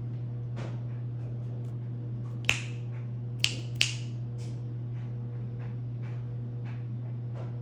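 A run of sharp, dry clicks, three louder ones close together near the middle, over a steady low hum.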